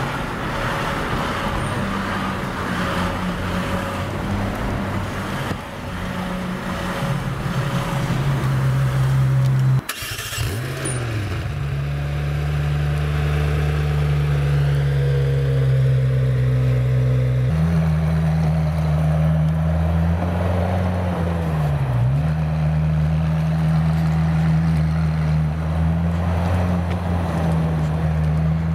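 McLaren Senna's twin-turbo V8 running at low revs, first while the car creeps through traffic and then, after an abrupt break, idling steadily close behind the car. Partway through the idle the pitch steps up slightly, and later dips briefly and comes back.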